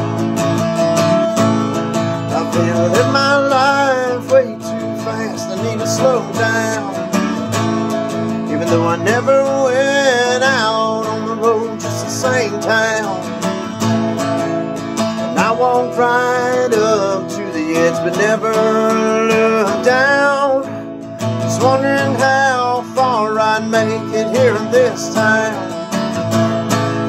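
Acoustic guitar strummed steadily as the intro to a country song, with a wavering wordless melody line over the chords in several passages.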